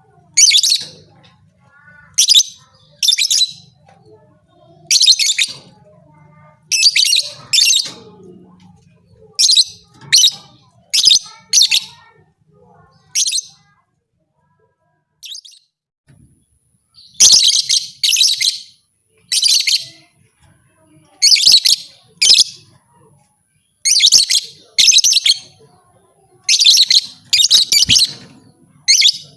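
Lovebird giving loud, shrill chirping calls in short bursts about once a second, with a pause of a few seconds around the middle.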